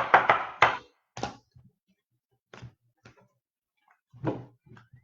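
Clacks and taps of trading cards being handled and set down on a table: a quick cluster of four or five at the start, then single taps about a second apart.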